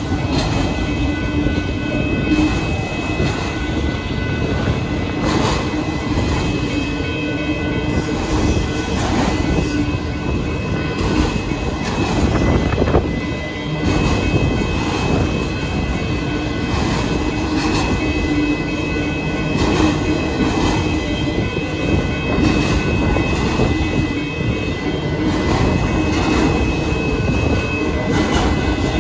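Freight train of autorack cars rolling through a grade crossing: a steady rumble of steel wheels on rail, with repeated clacks as the trucks pass over rail joints. Steady high tones ring over it throughout, fitting the crossing's warning bell sounding while the signals flash.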